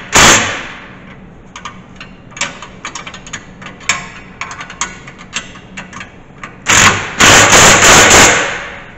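Cordless impact driver hammering a bolt on a snow-plow mount plate, in loud rattling bursts: a short one right at the start and a longer run of about a second and a half near the end. Between them come lighter clicks and taps of metal.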